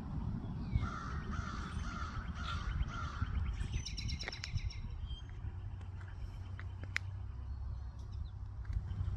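A crow cawing about five times in quick succession, starting about a second in, followed by a brief rapid high chatter. A steady low rumble runs underneath.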